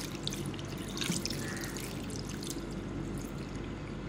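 Water pouring in a steady stream from a jug into a glass bowl of spiced turnip slices, with small splashes as the bowl fills to cover the turnips.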